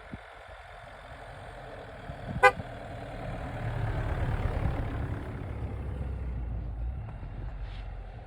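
Road vehicle engine and road noise, a low rumble that swells for a few seconds in the middle, with one very short horn toot about two and a half seconds in.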